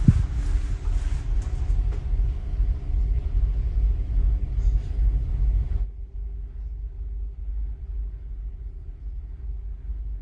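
Steady low rumble and drone of the car ferry Lilac's engines under way, carried through the ship's interior, with faint steady hum tones. A brief low thump comes right at the start, and the higher hiss drops away about six seconds in, leaving the low rumble.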